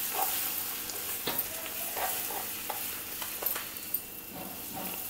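Gram flour sizzling and bubbling in hot oil in a small tadka pan, stirred with a metal ladle that clicks and scrapes against the pan a few times.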